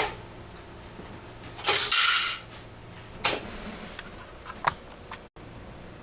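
Sharp metallic clicks and a short metallic rattle from an antique Western Electric 236G three-slot payphone: a click at the start, a half-second rattle about two seconds in, another click a little after three seconds, and two fainter clicks near the end.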